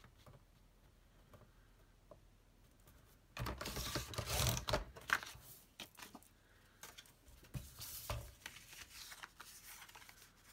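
A sliding paper trimmer cutting a sheet of paper: about three and a half seconds in, the blade carriage scrapes along the rail for a second and a half. Light clicks and paper rustling follow as the cut piece is handled.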